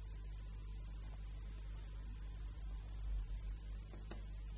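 Steady low electrical mains hum with faint hiss, with one faint click about four seconds in.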